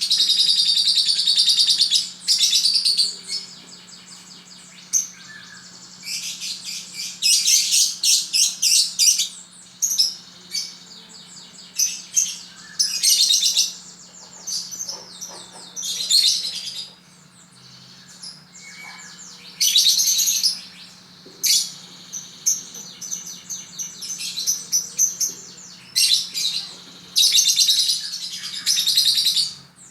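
Lovebird giving repeated bursts of fast, high-pitched chattering trills, each lasting a second or two, with short pauses between.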